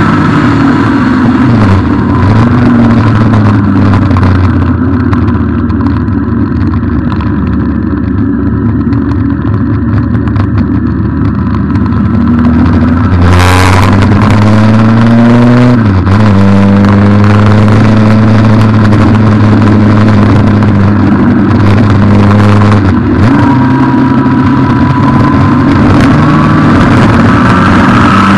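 Yamaha FJR1300's inline-four engine running under way, its pitch holding steady and then dipping and rising several times as the bike slows and pulls away again. A short burst of noise comes about halfway through.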